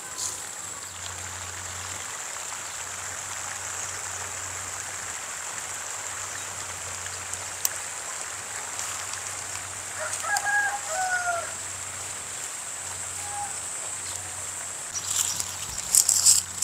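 A rooster crows once, about ten seconds in, over a steady high-pitched background tone. Near the end come loud bursts of rustling and knocking.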